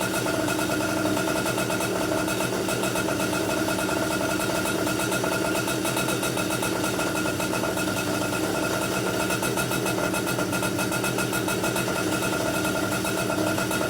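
Komet K30 two-stroke rotary-valve kart engine, built with a stroker crank and a new 55 mm piston, running at a steady speed as the piston is broken in.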